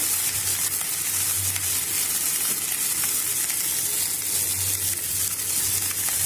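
Sliced cabbage, capsicum and tomato sizzling as they sauté in hot oil in a non-stick frying pan, with a steady frying hiss and light scrapes of a wooden spatula stirring them.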